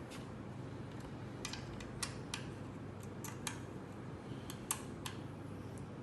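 Scattered sharp clicks and light taps, about a dozen at irregular intervals, from parts and hand tools being handled while the machine is assembled, over a steady low hum.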